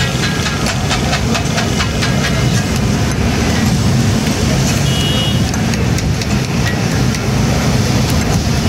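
Steel spatulas clattering rapidly on a flat iron griddle as katakat offal is chopped and fried, over a steady low rumble. The clatter is densest in the first three seconds and thins out after that.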